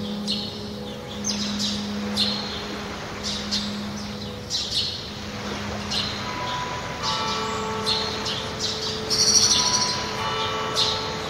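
Birds chirping in short repeated calls over soft sustained music chords, the opening of a song track. The chord changes about six seconds in, and a louder burst of bird calls comes near the end.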